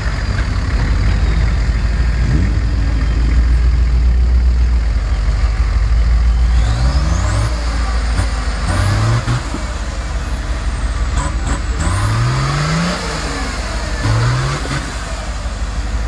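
Off-road 4x4 pickup's engine working through deep mud ruts, with a steady low rumble. From about halfway it revs up in four short rising bursts as the driver applies throttle to climb through.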